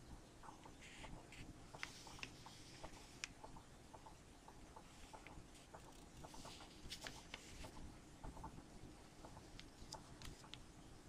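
Faint rustling and irregular light ticks of a sheet of printer paper being folded and its crease pressed flat by hand.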